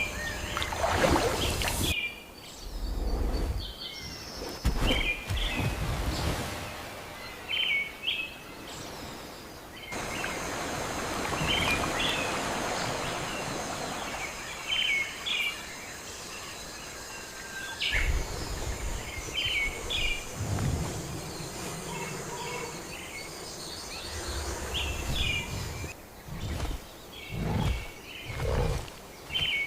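Forest ambience: birds giving short chirps every second or two over a steady background hiss. Low rumbles come and go, and the background changes abruptly every eight seconds or so.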